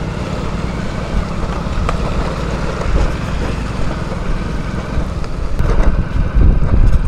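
Riding on a motorbike or scooter: a steady low rumble of engine and tyres with wind on the microphone, getting louder and gustier near the end.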